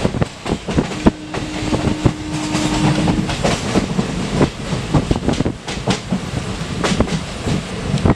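Moving train heard from its own coach: steady running rumble with frequent sharp clatters and knocks from the wheels on the rails. A thin steady whine sounds over it for a couple of seconds, starting about a second in.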